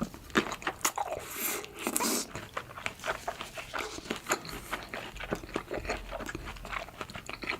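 Close-miked eating: crunchy bites and chewing, a dense run of sharp crunches and mouth smacks, with a longer rustling, slurp-like stretch about one and a half seconds in.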